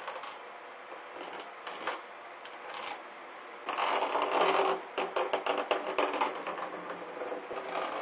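Handling of plastic parts on a plastic ice chest lid: a PVC elbow and a small clip-on fan are lifted off, with plastic rubbing and scraping. A louder stretch of scraping comes about four seconds in, then a run of light clicks, over a faint steady hum.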